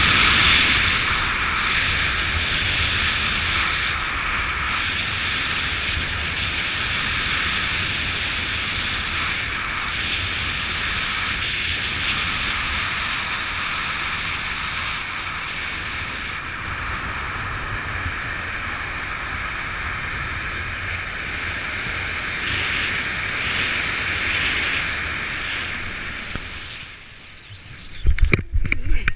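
Steady wind rushing over the camera's microphone as a skydiver glides down under an open parachute canopy. The wind dies down near the end as he slows for landing, and then come a few loud thumps and rustles as he touches down on dry grass.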